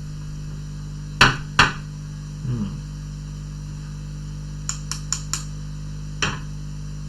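Sharp clicks and knocks of small metal tools and parts being handled while a soldering iron tip is swapped for a smaller one: two loud knocks about a second in, a quick run of light ticks around five seconds, and one more knock near the end. A steady electrical hum runs beneath.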